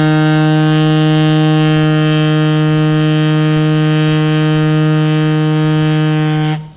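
A single long, steady horn blast on one low note rich in overtones, which cuts off sharply near the end.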